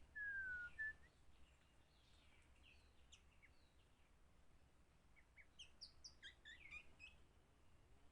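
White-rumped shama singing: a few clear whistled notes, one gliding down, in the first second, then a faint run of quick, varied chirping notes later on.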